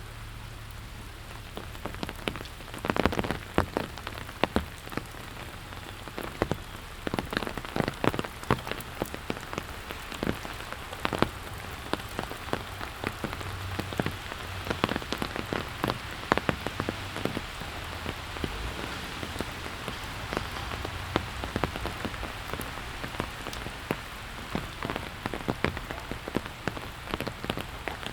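Steady rain with many loud, close individual raindrops and drips landing sharply, starting about two seconds in and thinning near the end.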